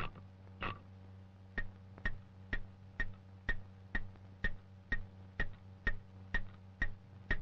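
Clockwork metronome ticking evenly, about two ticks a second, over a low steady hum. Two louder clicks in the first second come from the metronome being wound before it settles into the beat.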